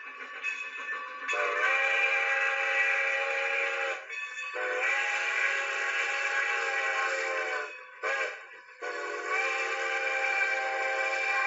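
Steam locomotive whistle blowing three long blasts of several tones together, each a few seconds long with a short break between, over a hiss.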